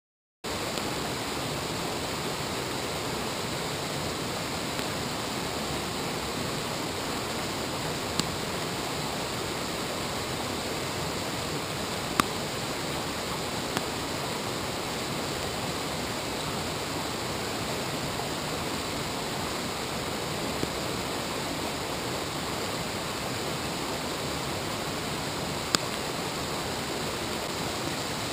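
Steady rushing of a waterfall and river tumbling over rocks, with a few sharp ticks now and then, the loudest about twelve seconds in and near the end.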